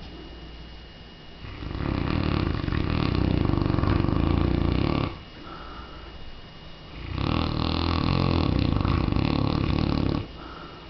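A mastiff snoring loudly: two long snores of about three seconds each, one starting about one and a half seconds in and the other about seven seconds in, with quieter breathing between them.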